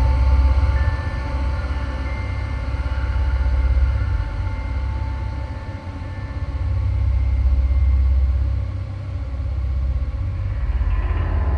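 Horror background ambience: a deep rumbling drone that swells and fades in slow waves, with thin, high held tones ringing faintly above it. Near the end a new set of mid tones comes in.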